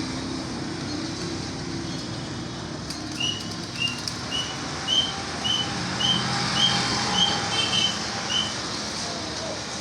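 Parrot calling a short, rising whistled note about twice a second, some ten times in a row, over steady background noise.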